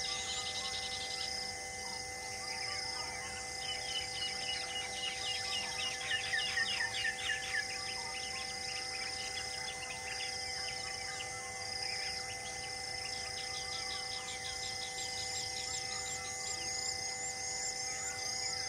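Rural ambience of birds and insects: a high chirp repeats steadily, and runs of quick falling bird notes are loudest about six to eight seconds in, over a steady insect drone.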